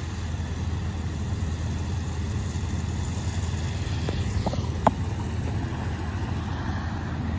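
Steady low hum of an idling diesel engine on rail maintenance-of-way equipment, with a few light clicks between four and five seconds in.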